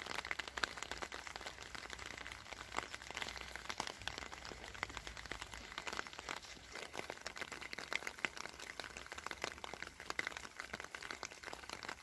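Rain pattering: a dense, irregular crackle of small drops.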